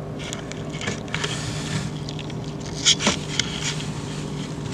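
Magnetic ballast of a fluorescent light fitting humming steadily while it drives a Philips TL-D 18 W tube at the end of its life, its electrode burning out and the tube flickering. A few short clicks, the loudest about three seconds in.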